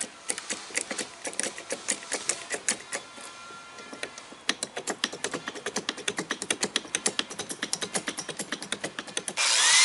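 Hand-worked hydraulic bottle jacks clicking: irregular metallic clicks, then a quick regular run of about five or six a second as the jack is adjusted to press the fiberglass canoe hull down. Near the end an angle grinder starts up loudly with a rising whine.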